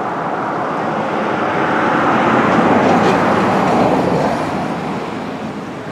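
Rushing river water, a steady hiss-like rush that swells for a couple of seconds in the middle and eases off near the end.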